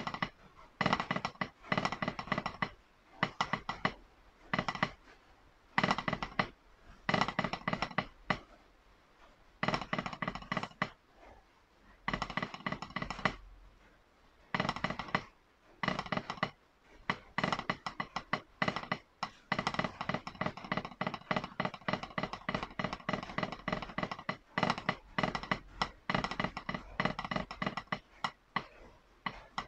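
Wooden drumsticks playing a snare drum roll étude on a rubber practice pad. Dense runs of rapid strokes and rolls come in phrases of a second or two, broken by short pauses, and run almost without a break in the second half.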